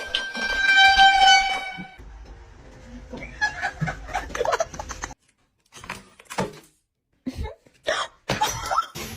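A loud, steady horn-like honk lasting about two seconds, followed by a jumble of short noises and knocks.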